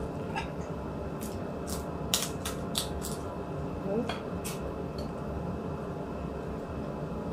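Eating sounds: scattered sharp clicks and taps from chewing and from utensils on a plate, over a steady background hum.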